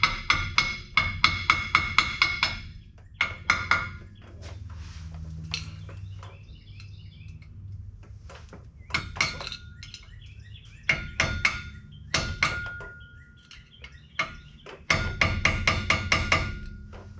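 Hammer striking a dump truck driveline's U-joint bearing cap to loosen it so it will spin. The blows come in quick runs of about five a second with pauses between, and the metal rings.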